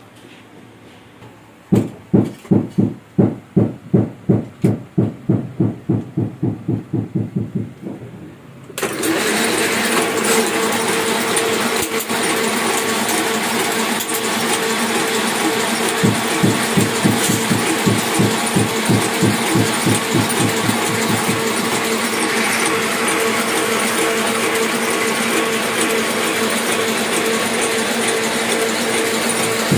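Hamada 600 offset printing press running: a steady beat of low thumps at about three a second, then about nine seconds in a loud steady hiss and hum comes on suddenly and keeps going, with the press's beat still under it.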